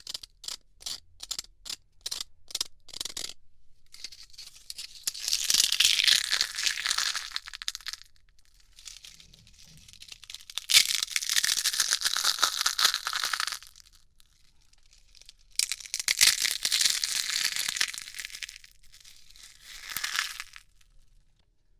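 ASMR ear-cleaning sounds made on the ear of a 3Dio binaural dummy-head microphone. A run of quick clicks is followed by three long bouts of crackly scratching and rubbing, with short pauses between them.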